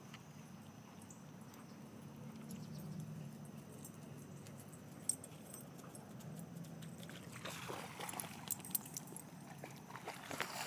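Dog splashing and running through shallow water near the end, a rising rush of water noise with scattered clicks. Before that, only a faint low steady hum with an occasional click.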